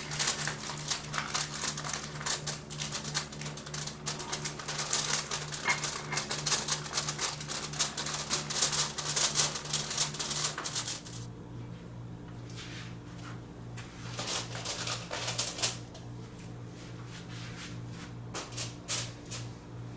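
Rapid clicking and clattering of kitchen utensils at work, dense for about the first half and sparser after, over a steady low hum.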